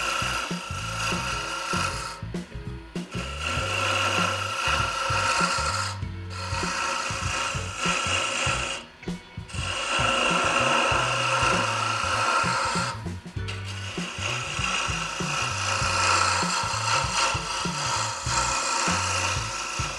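Wood lathe turning a wooden spindle while a turning tool scrapes the spinning blank: a continuous rasping scrape, broken by a few short pauses. The tool is used with the scraping method, which tears the wood and leaves a rough, chipped surface.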